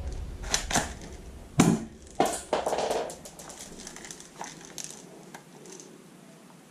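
Hard plastic clicks and clacks of a toy pistol being handled and loaded, a handful of sharp knocks in the first three seconds, the loudest about a second and a half in, then fainter scattered clicks.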